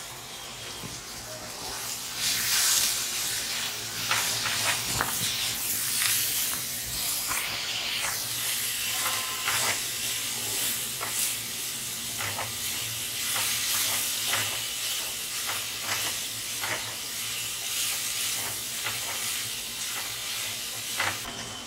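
Chopped cabbage, carrots and beans sizzling as they are stir-fried in a metal wok, with a wooden spatula scraping and tapping against the pan over and over. The sizzle grows louder about two seconds in.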